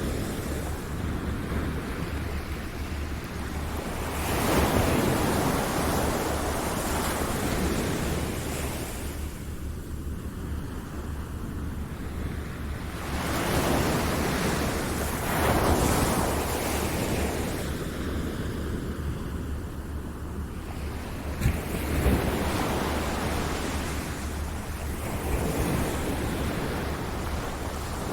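Ocean surf washing in: a steady rush of waves that swells and falls back every several seconds, over a low rumble. A brief sharp crack stands out about two-thirds of the way through.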